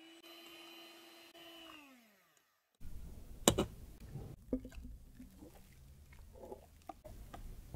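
Handheld milk frother whipping cream in a glass measuring cup: a steady whirring whine that slows in pitch and stops about two seconds in. Then come a sharp clink of glassware and soft wet plops of thick cream mixture poured into a glass bowl.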